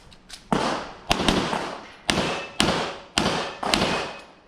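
Handgun shots during an IPSC course of fire: about eight shots, roughly two a second with one quick pair, each ringing out briefly after the report.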